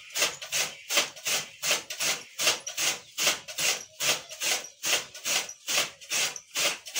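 Hand-cranked chaff cutter chopping green fodder: its flywheel blades slice through the feed in a steady rhythm of about two to three chopping swishes a second.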